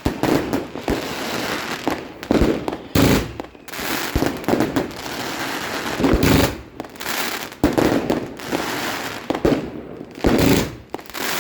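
Fireworks going off: sharp bangs every second or two over continuous crackling.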